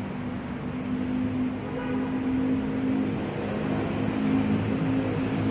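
Steady low mechanical hum holding a few fixed pitches.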